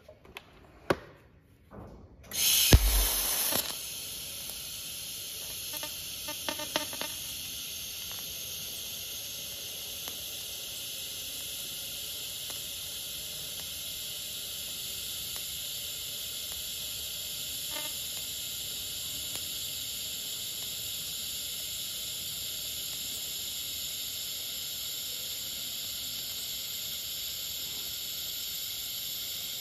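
TIG welding arc hissing steadily while filler rod is fed in, building up weld to repair a forklift axle's damaged king pin bearing bore. The arc starts with a loud burst about two seconds in, after a couple of light clicks.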